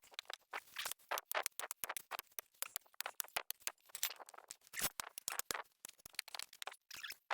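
Broken driveway concrete being scraped and picked out: faint, irregular clicks, scrapes and rattles of loose chunks and grit. The old concrete is crumbling, almost like loose aggregate.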